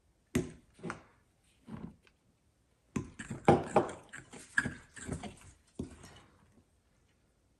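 A metal fork stirring flour into egg-and-oil batter in a glass mixing bowl, its tines clinking and scraping against the glass in short knocks. There are a few separate knocks at first, then a busier run of them from about three seconds in.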